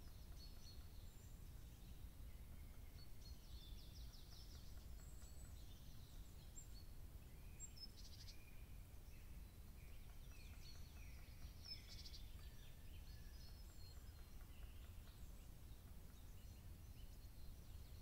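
Faint birdsong of small woodland songbirds: scattered high chirps and short rapid trills, busiest a few seconds in and around the middle, over a steady low background rumble.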